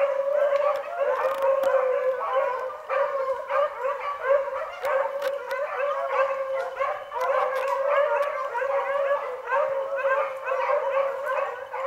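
A pack of beagles baying, many overlapping voices in a continuous chorus: the hounds in full cry as they run a rabbit's track.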